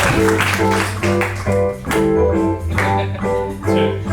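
Instrumental intro of a theme song: the same chords played again and again in short, evenly spaced strokes over a bass line with a steady beat.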